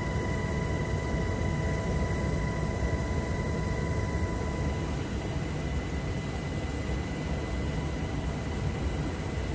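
Military helicopter in flight, heard from inside the cabin with the side door open: steady rotor and engine noise with a thin, steady high whine over it.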